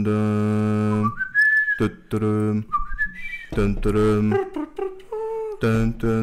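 A man's voice holds a low, steady chant-like hum on one pitch, broken by short whistles that glide upward in pitch, about a second in and again around three seconds in.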